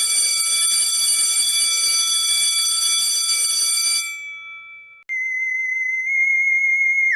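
Stock sound effects: an electronic alarm-like ringing of several high tones that stops after about four seconds and dies away. Then a single high, slightly wavering whistle-like tone, which slides steeply down in pitch right at the end.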